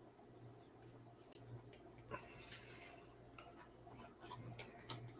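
Faint, irregular clicks and taps of trading cards being handled and set down on a desk mat, over a low steady hum.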